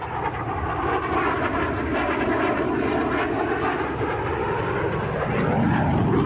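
Tejas light combat aircraft's single turbofan engine in flight: a loud, steady jet roar.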